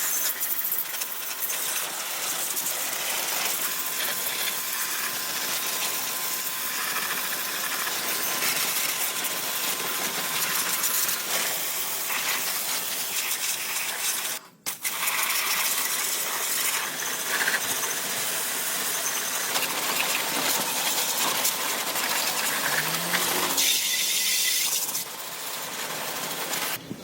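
Tools working on metal: continuous scraping and clinking, scratchy and full of small clicks, with a brief dropout about halfway through.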